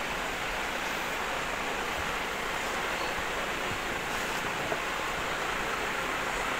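A steady, even rushing hiss of background noise, with no distinct sounds standing out over it.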